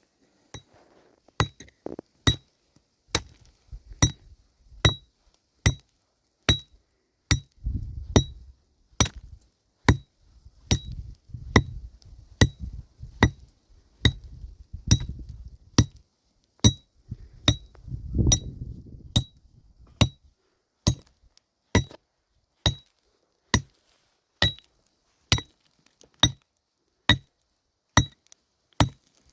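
Steady hand hammering: a hammer driving nails into wooden planks, a little over one blow a second, each blow with a short metallic ring.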